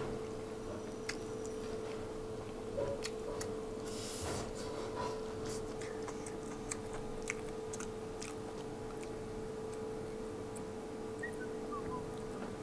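A person chewing food, with scattered light clicks of a metal spoon against a metal rice bowl, over a steady low hum.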